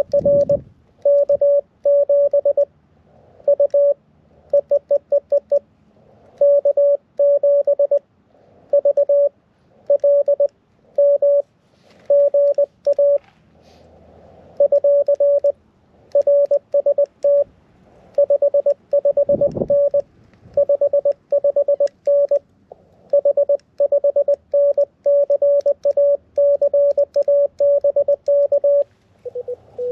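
Morse code (CW) from a portable QRP ham radio transceiver: a single steady beeping tone keyed in short and long elements, dots and dashes in quick irregular groups throughout. A soft low thump sounds about two-thirds of the way through.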